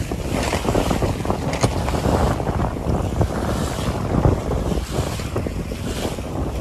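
Strong wind buffeting the microphone over the rush and splash of water along the hull of a Contessa 26 sailing yacht heeled under sail.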